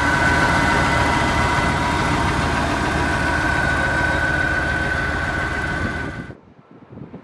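1973 Chevrolet Corvette's 350 cubic-inch V8 idling steadily, with a steady high-pitched whine over the engine note. It cuts off suddenly about six seconds in.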